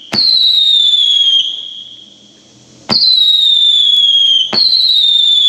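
Consumer firework cake firing three whistling shots: each sharp launch pop is followed by a high whistle that falls in pitch over about a second and a half. The shots come at the start, about three seconds in, and again a second and a half later.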